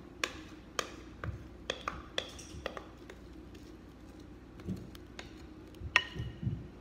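Spatula tapping and scraping against a glass mixing bowl while cake batter is poured out into a foil pan: a string of light taps and clicks, a few with a short glassy ring.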